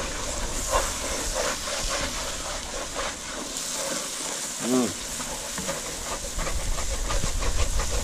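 Chopped vegetables and tomatoes sizzling and hissing in a dark roux in a cast-iron pot, with a wooden spoon stirring and scraping the bottom in short strokes. A brief pitched sound rises and falls a little past halfway.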